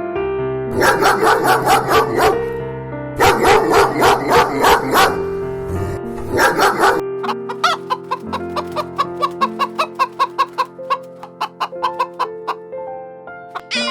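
Chickens clucking in quick repeated notes: three loud bursts in the first half, then a long run of faster, fainter clucks that fade away, over background music.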